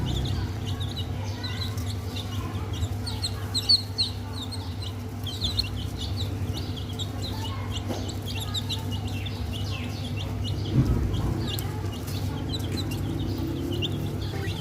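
A group of baby chicks peeping continuously, with many short high chirps every second. Two brief bumps stand out, about 4 and 11 seconds in.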